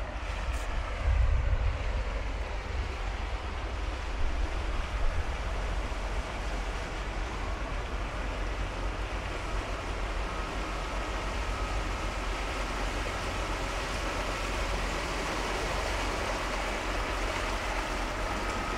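Steady rush of water and wind with a low rumble and a few gusts in the first five seconds. About ten seconds in a faint steady whine comes in and grows stronger near the end as the electric-converted jet ski, driven by an ePropulsion Navy 6 electric outboard, comes close.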